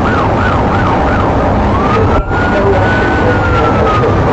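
Police car siren in a fast yelp that changes about a second and a half in to a slow wail, rising and then starting to fall, over a steady rumble of engine and road noise. The sound cuts out for an instant about two seconds in.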